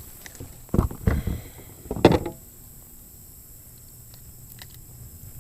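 Knocks and thumps on a kayak as a small largemouth bass is landed and handled, in two short clusters about one and two seconds in.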